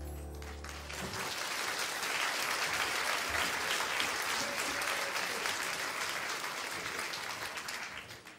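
The last sustained chord of the music dies away, then an audience applauds, starting about a second in and fading out near the end.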